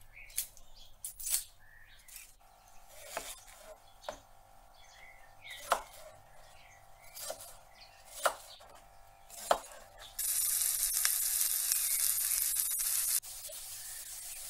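A kitchen knife cutting a red onion on a plastic cutting board: single sharp knocks every second or two. About ten seconds in, a loud steady hiss starts, holds for about three seconds, then drops to a quieter hiss.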